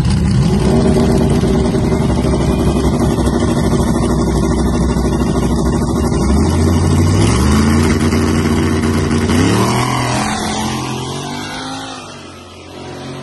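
Engines of two street drag racers, a nitrous-fed all-wheel-drive 1999 GMC Sierra pickup and a turbocharged Fox-body Mustang, running steady on the line, then launching about six seconds in. The pitch climbs in steps through the gear shifts and the sound fades as the cars pull away.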